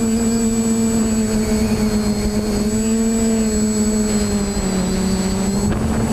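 Multirotor drone's motors and propellers humming steadily, picked up by the camera on the drone itself. The pitch wavers slightly and dips a little about three-quarters of the way through as the drone manoeuvres.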